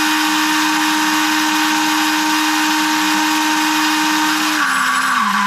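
Ryobi 18V brushless chainsaw's electric motor running at full speed with a steady high whine, then about four and a half seconds in its pitch drops in steps as it starts to slow and falter. The faltering is an intermittent fault that the owner takes to be heat or runtime related, in the controller electronics.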